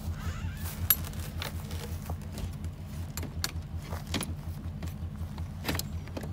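Light metallic clicks and rattles of an RV entry door and its latch being worked by hand, over a steady, evenly pulsing low mechanical throb.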